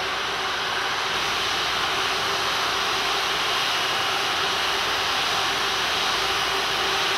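Airbus A330's jet engines idling as it taxis in to the gate: a steady, even rush with a faint hum underneath.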